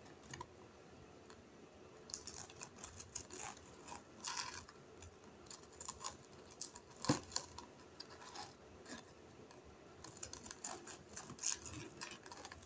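Knife cutting crispy breaded chicken nuggets in half on a plastic cutting board: irregular crunches of the crust and taps of the blade on the board, the sharpest tap about seven seconds in.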